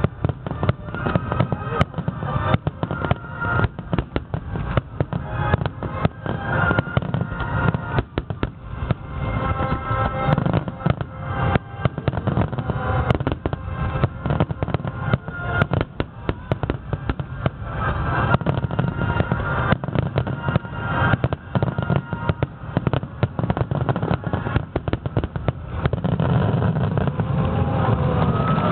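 Aerial fireworks bursting in a rapid barrage, many bangs and crackles a second, over music playing. The bangs come thicker and louder in the second half.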